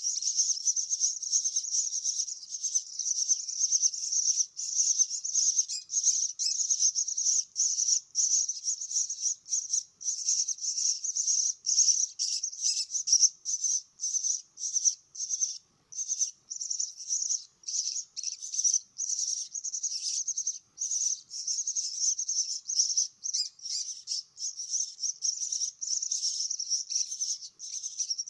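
Starling chicks giving high-pitched begging calls: a rapid, nearly unbroken run of short chirps with brief pauses, as chicks call while being fed.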